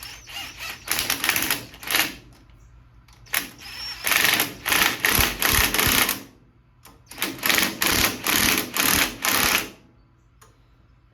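Cordless impact wrench hammering on a steering wheel puller's forcing screw in three bursts of two to three seconds each, straining to pull a stuck steering wheel off its shaft.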